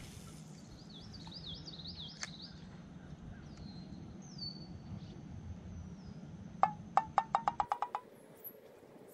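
Wild birds chirping, a quick run of wavy repeated notes followed by a few short falling whistles, over a low steady rumble. Near the end comes a quickening run of about ten sharp clicks, the loudest sound here.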